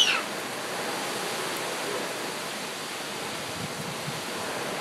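Thunderstorm downpour with gusting wind: a steady, even rush of heavy rain and wind.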